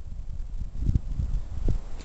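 Soft thuds of footsteps in deep snow, about one a second, over a low rumble.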